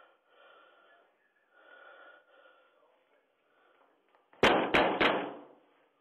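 Three heavy bangs on a door in quick succession, about a third of a second apart, picked up loud and harsh by the door-mounted doorbell camera's microphone.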